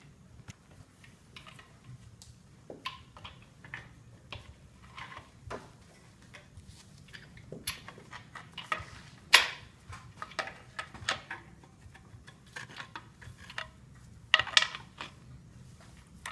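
Irregular metal clinks and clicks of main bearing cap bolts and a hand tool being worked on a bare 5.7L HEMI engine block with the crankshaft in place. The loudest clink comes about nine seconds in, with a cluster near the end.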